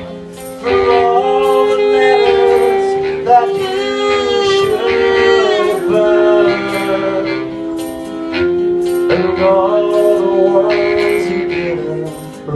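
Live band music with a sung melody over instrumental accompaniment and a steady beat.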